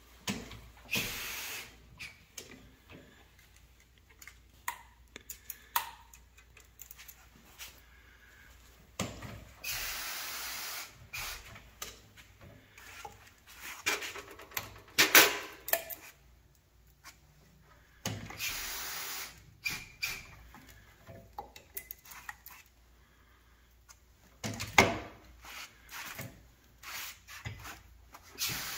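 A valve spring compressor machine stripping a Subaru EJ25 SOHC cylinder head. Several short hisses come at intervals, among many clicks and metallic clatter as the valve keepers, retainers and springs come off.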